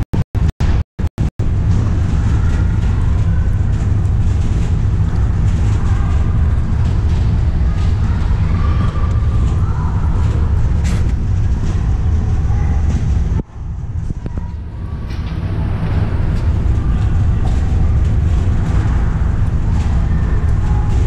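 Loud, steady low rumble of ice-rink background noise, with a few brief cut-outs in the first second or so and a short dip about thirteen seconds in.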